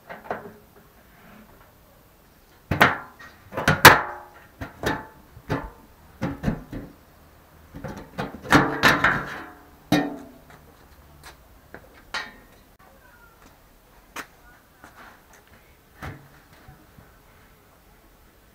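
Irregular metal clanks and scrapes as the bolted clamp ring on a steel drum's lid is loosened and lifted off. The loudest bangs come in two bunches, about three and about nine seconds in, followed by lighter clicks and knocks as the lid is handled.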